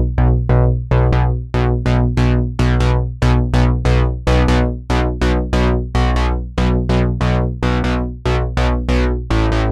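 Background music: a synthesizer melody of short, quickly fading notes, about three to four a second, over a steady bass.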